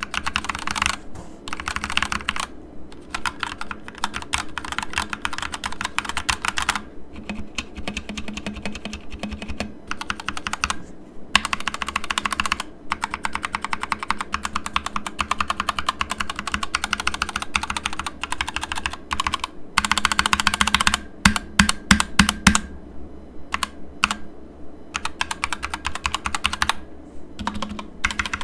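Typing on an Akko 3068 Silent 60% mechanical keyboard with Gateron Pink switches: fast runs of key clicks broken by short pauses, with a few louder separate strokes about three-quarters of the way through.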